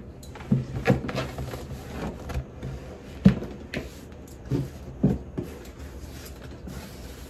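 Large cardboard gift box being set down and handled, giving several knocks and thuds, the sharpest a little over three seconds in, with soft rustling as its ribbon is untied.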